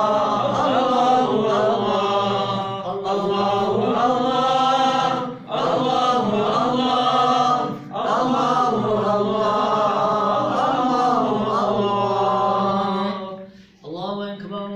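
Male voice chanting the ezan (Islamic call to prayer) in the Hicaz maqam. It sings long ornamented phrases that bend up and down in pitch, breaks briefly for breath twice, and trails off near the end.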